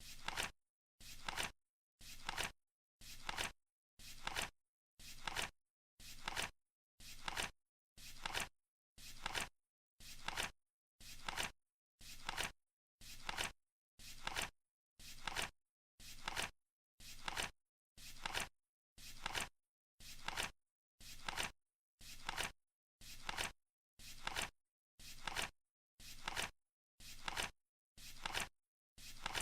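Flip clock counting down: a short flap ending in a click once a second, evenly spaced, as the digit cards turn over.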